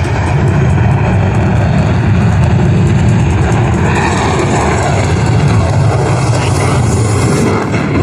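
Boeing F/A-18 Super Hornet's twin jet engines, a loud, steady rumble during a high-power demonstration pass.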